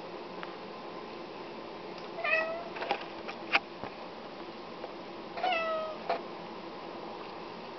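Domestic cat meowing twice, about three seconds apart, each a short call that falls slightly in pitch: a hungry cat asking for food. A few sharp clicks come between the two meows.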